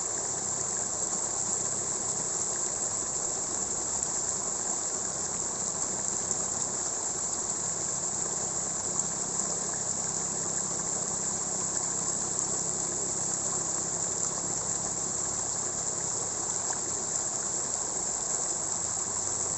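Water running steadily through rice paddy fields, an even, unbroken rushing with no pauses, with a high steady chorus of insects over it.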